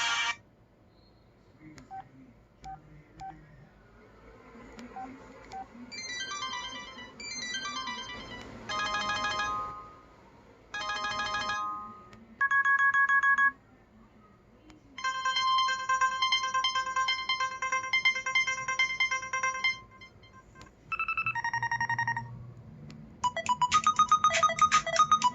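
A run of electronic ringtones from an LG Lotus phone, each played for one to a few seconds with short pauses between: beeping melodies, a two-tone alternating beep, a warbling tone, and near the end a fast repeating beep pattern. A few faint clicks come about two to four seconds in.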